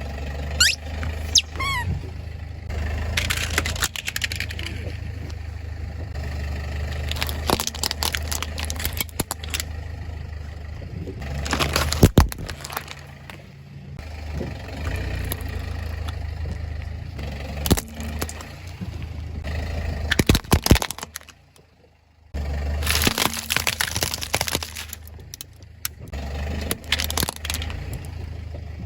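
A car's engine running at low speed while its tyres roll over objects and crush them, with a series of sharp cracks and crunches; the loudest snap comes about twelve seconds in.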